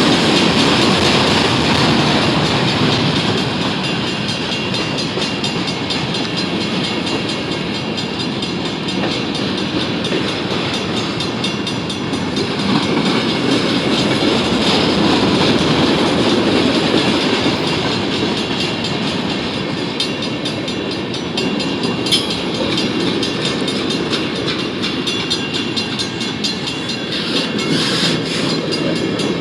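Freight cars of a manifest freight train rolling past, a steady rumble with wheels clacking over the rail joints, and a sharp click about two-thirds of the way through.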